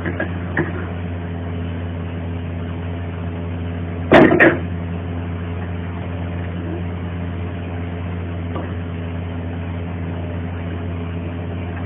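A steady low mechanical hum with a constant drone, broken by a brief louder sound about four seconds in.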